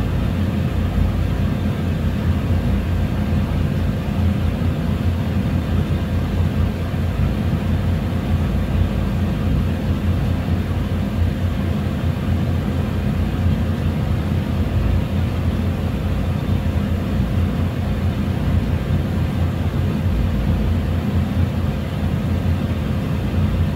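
Shop furnace running: a steady low drone with a faint steady hum above it.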